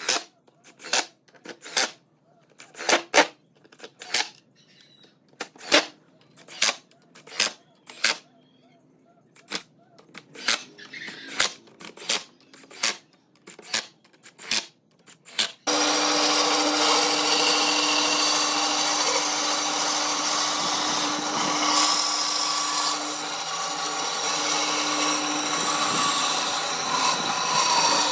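A series of sharp hand-tool strokes on wood, about one a second with short gaps. About halfway through a power tool starts abruptly and runs steadily with a low hum.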